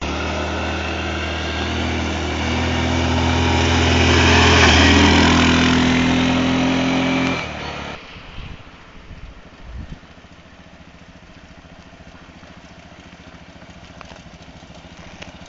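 ATV engine running hard with a steady note that swells to its loudest about five seconds in. About seven seconds in it drops away suddenly to a quieter, steady idle.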